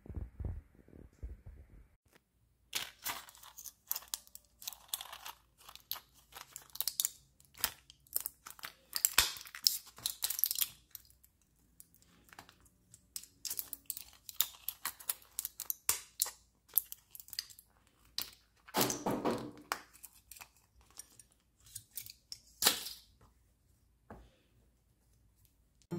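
Plastic-and-foil pill blister pack crinkling and tearing in quick irregular crackles as tablets are pressed out through the foil, with two louder bursts of crackling in the second half.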